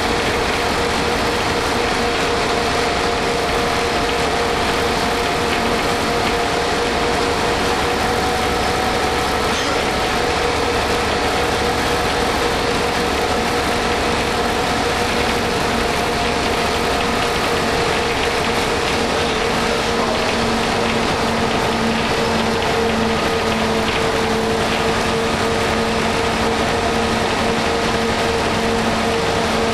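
Cabin noise inside a 1988 Ikarus 280.03 articulated bus, its Rába-MAN six-cylinder diesel running steadily, with a constant whine over the engine and road noise. A further lower hum joins about two-thirds of the way through.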